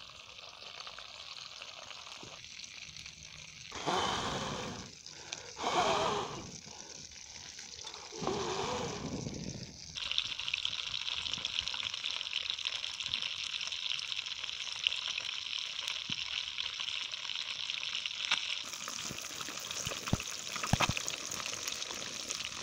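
Fish pieces frying in hot oil in a frying pan over a wood fire, a dense crackling sizzle that sets in suddenly about ten seconds in. Before it, a faint hiss is broken by brief louder noises about four and six seconds in and again near nine seconds.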